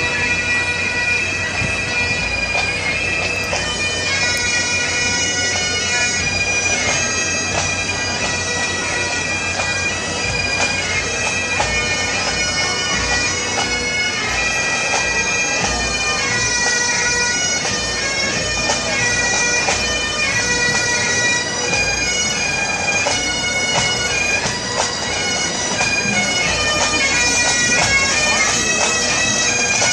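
Highland pipe band's bagpipes playing a march: the melody over their steady drones, a little louder near the end.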